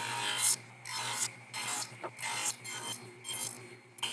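Table saw running with its blade cutting a groove into the end grain of a pine board, a steady motor hum under cutting noise that comes and goes in short bursts.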